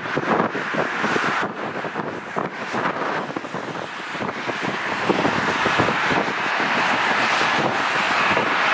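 Jet airliner on final approach, its engine noise a steady rush that grows louder through the second half, over gusty wind buffeting the microphone.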